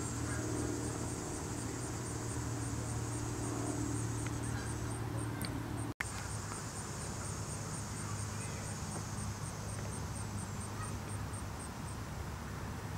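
Outdoor ambience: a high, rhythmic chirping, about three chirps a second, over a steady low rumble. The sound drops out for an instant about six seconds in.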